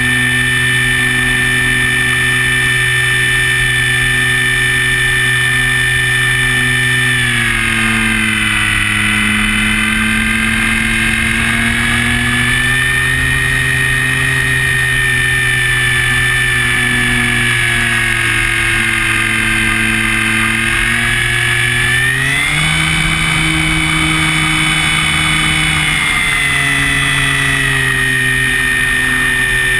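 Multiplex Fun Cub's electric motor and propeller whining steadily, heard from a wing-mounted camera close by. The pitch drops about seven seconds in as the throttle comes back for a low pass, then rises again a little after twenty seconds as power comes on for a climb.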